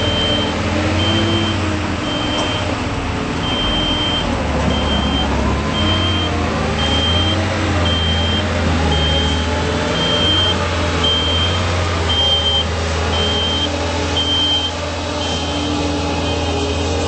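Genie S45 telescopic boom lift's engine running as the lift drives and slews its boom, the engine pitch rising and falling with the work. Its motion alarm beeps about once a second and stops near the end.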